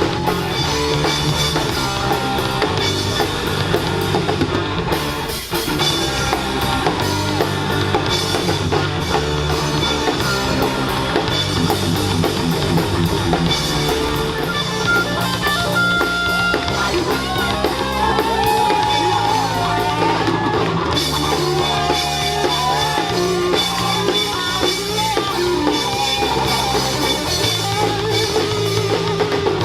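Live rock band playing: electric guitar, bass and a drum kit, with a brief drop about five seconds in before the full band carries on.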